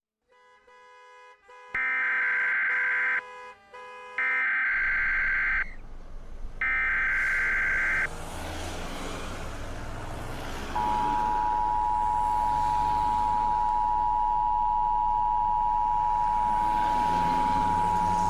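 Emergency Alert System tones: three bursts of the SAME digital header, each about a second and a half long with short gaps between them. Then the EAS attention signal, a steady two-tone beep (853 and 960 Hz) held for about eight seconds over a low background rumble.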